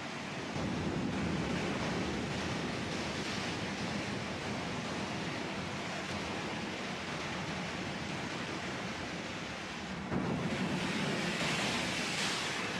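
Ocean waves in a steady rush of surf, with a louder wave surging in about ten seconds in.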